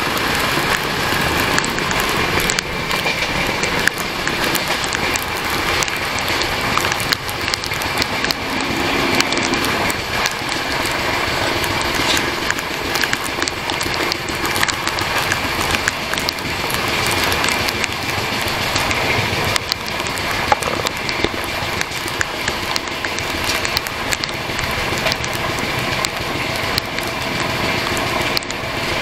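Jharkhand Swarna Jayanti Express coach running at speed, heard from outside the car: a steady rush of wheel-on-rail noise and passing air, with scattered small clicks from the wheels and track.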